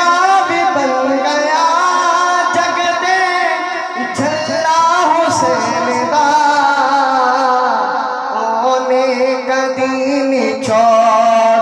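A young man's solo voice, singing into a microphone, draws out long, wavering melismatic notes of a Punjabi manqabat in praise of Hussain.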